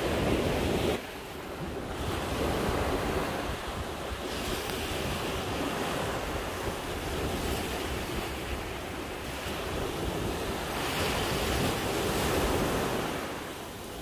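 Heavy surf breaking on a beach in a storm, mixed with strong wind buffeting the microphone; the rush of the waves swells and ebbs. The level drops suddenly about a second in.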